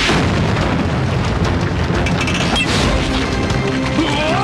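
Loud cartoon blast from an arm-mounted stun blaster: a long, steady explosion rumble over background music. The shot, meant as minimum force, is far too powerful. Near the end, whistling tones sweep up and down.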